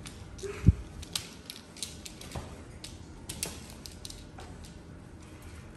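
A fox's claws clicking and tapping irregularly on plastic grating floor mats as it walks about. A single sharp thump comes about two-thirds of a second in.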